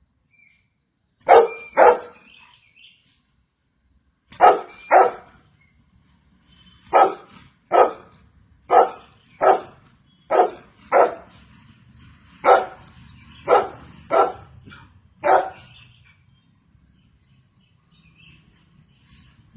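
Golden retriever barking: two quick pairs of barks, then a run of single barks about a second apart, stopping about three-quarters of the way through.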